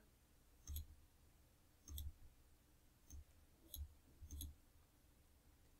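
Five faint computer mouse clicks, spaced irregularly over a few seconds, against near silence.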